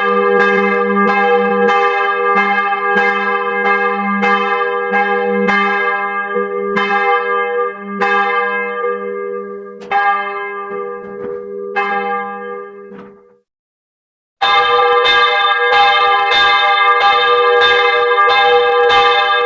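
Alarm tone of rapidly repeated bell strikes, about two a second, ringing over a sustained bell hum. The strikes grow sparser and fade out a little after halfway. After about a second of silence they start again abruptly at full loudness.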